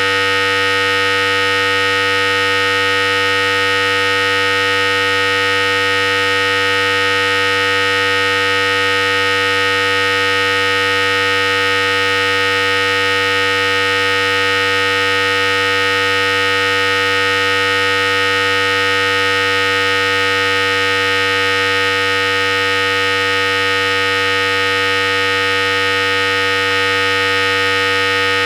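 Philips Series 5000 hair clipper running continuously, a steady, unchanging hum with bright overtones.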